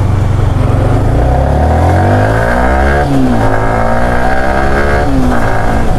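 Yamaha R15 V3's single-cylinder engine pulling away and accelerating. Its pitch climbs, drops sharply about three seconds in and again about five seconds in as it shifts up through the gears.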